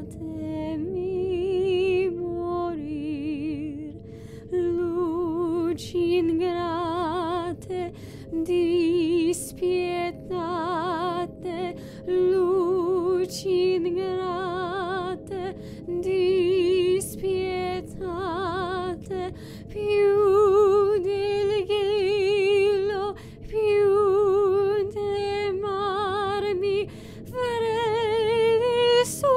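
A woman singing a slow, wordless melody with a wide vibrato, in short phrases broken by breaths, over a faint steady tone.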